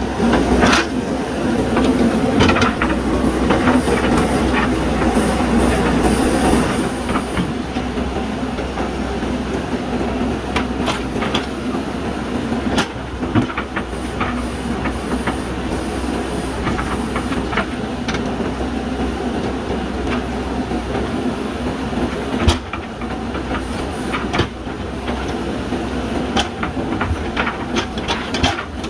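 JCB backhoe loader's diesel engine running steadily under working load, somewhat louder for the first several seconds, with scattered sharp metallic clanks from the digging arm and bucket. The loudest clank comes a little past the middle.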